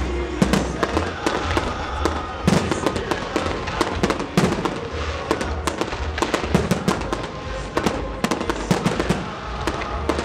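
Fireworks display: aerial shells bursting in rapid, irregular bangs, with crackling between them.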